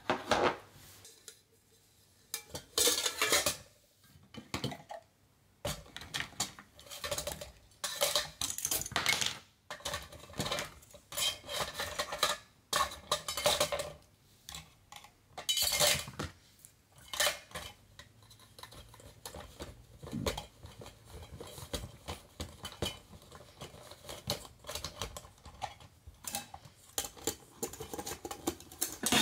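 Metal camp billy pots (DUG Takibi-kan) and their lids being handled and nested: irregular clinks and clanks of metal on metal as items are packed inside and lids pressed on.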